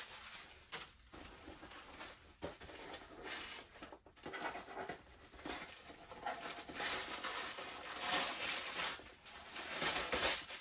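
Tissue paper and packaging rustling and crinkling in irregular swells as a boxed toy vehicle is unwrapped and handled.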